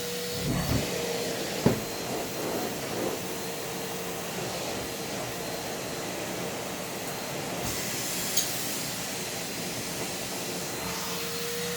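Numatic Hetty cylinder vacuum cleaner running steadily, a constant motor whine over a rushing hiss of suction, with its nozzle sucking at socks. A few short knocks come in the first two seconds and one more later on.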